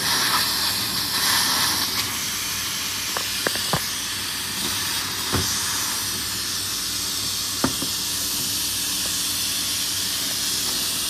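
Laser cutter hissing steadily with its air flow, with the hiss a little brighter for the first two seconds while the beam finishes cutting through white card. From about three seconds in, a few light clicks and taps follow as the cut card piece is handled.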